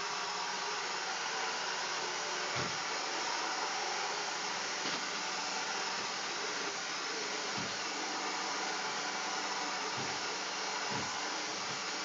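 Original iRobot Roomba robot vacuum running: a steady whir of its vacuum motor and brushes, with a few dull low thumps.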